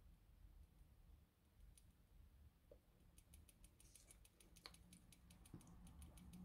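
Near silence: room tone, with a run of faint, fast clicks from about halfway through.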